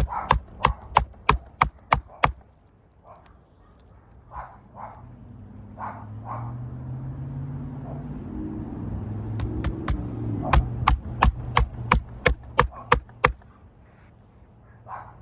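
Hammer driving roofing nails through asphalt shingles: a quick run of sharp strikes, about three a second, then a pause with a faint low drone, then a longer run of strikes.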